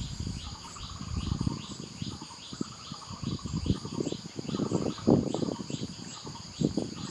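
Crickets or cicadas droning steadily, with a high chirp repeating about three times a second. Soft, irregular low thuds and rustling sit underneath.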